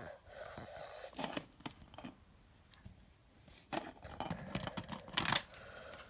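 LEGO bricks and pieces of a home-built puzzle box being handled: scattered light plastic clicks, scrapes and short rustles, with a brief cluster of them near the end.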